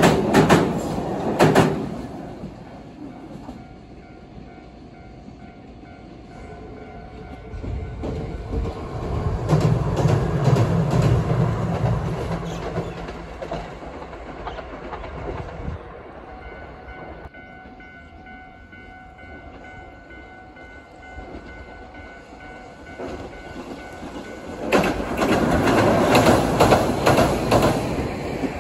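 Passing trains: wheels clacking over rail joints at the start and again near the end, with a steady rumble in between.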